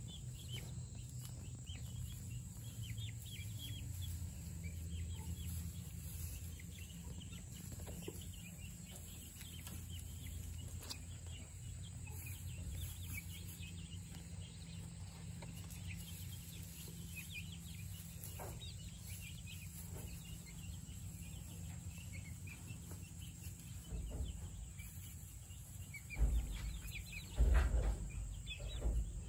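A flock of young chickens peeping and chirping continually, many short high calls overlapping, over a steady low hum. A few louder low thumps come near the end.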